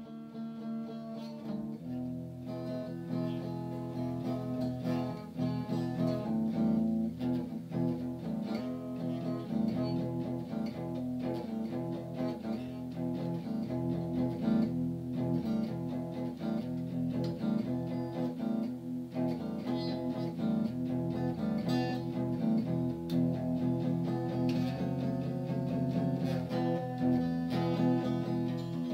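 Background music: an acoustic guitar picked and strummed in a steady rhythm.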